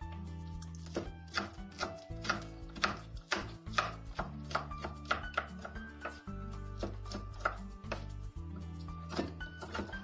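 Kitchen knife chopping raw fat on a wooden cutting board, sharp strokes at roughly two a second, over background music.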